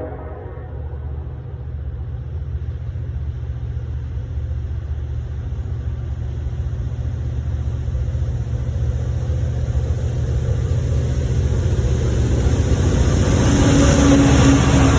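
A pair of EMD SD70ACe diesel locomotives approaching, their V16 two-stroke diesel engines rumbling and growing steadily louder.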